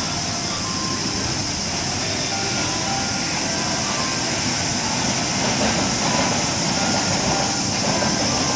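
Steady hissing background noise with a faint melody of short notes over it.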